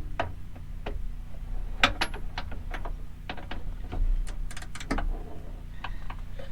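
Irregular metallic clicks and clinks of a socket on joined extension bars being worked into a tight spot on a Jeep hood latch, over a low steady hum.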